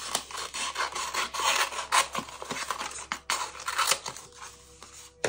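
Transfer tape being cut with scissors and handled: scratchy rustling strokes with a few sharp clicks, the loudest about two seconds and about three seconds in.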